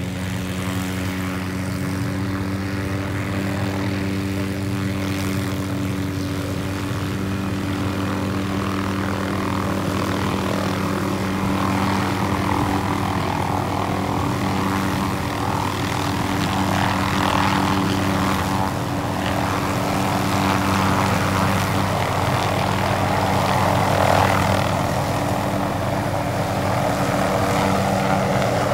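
MD 500-series light helicopter's turbine and rotor running with a steady hum, slowly growing louder as it lifts a sling load on a long line and climbs.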